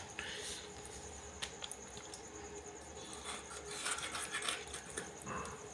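Faint scraping and scattered light clicks as pieces of a rohu fish are cut and worked against a hasiya's curved blade.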